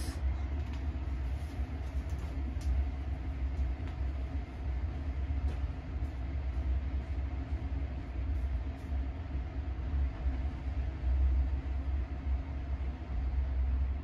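Steady low rumble with a faint constant hum and a few faint ticks: background noise with no activity in front of the microphone.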